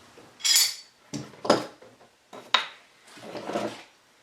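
A tool knocking and scraping on a wooden slab: a few separate short scrapes and sharp knocks. The work checks repaired defects in the wood.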